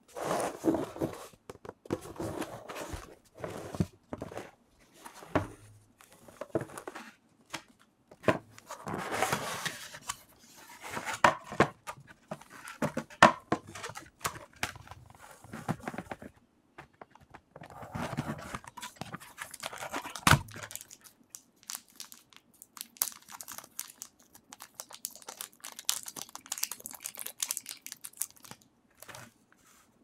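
Cardboard box being opened and handled: flaps and lid scraping and sliding, with frequent taps and knocks. Thin plastic packaging crinkles in the last several seconds.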